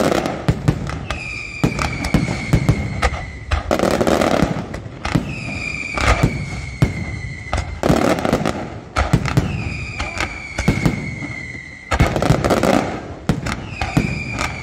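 Fireworks display: sharp bangs and crackling of bursting shells, with about five long whistles that each slide slightly down in pitch.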